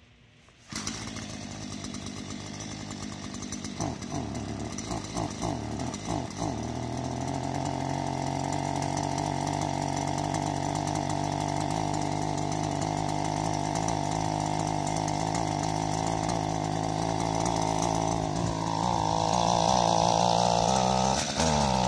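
Gas string trimmer engine running soon after a cold start. After a moment of near silence it idles with a few uneven blips of the throttle, settles into a steady higher run, then revs up louder about three quarters of the way through and swings down and up again near the end.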